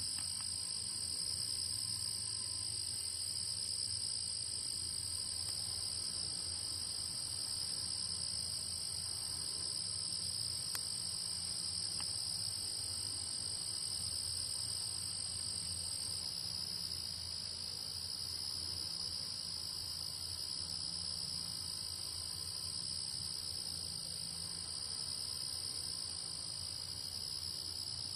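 Steady chorus of crickets trilling continuously at several high pitches, with one of the higher trills stopping a little over halfway through. A faint low hum sits underneath.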